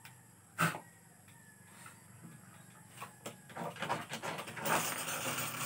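A single sharp tap about half a second in, then noisy slurping as hot coffee is sipped from a spoon, loudest near the end.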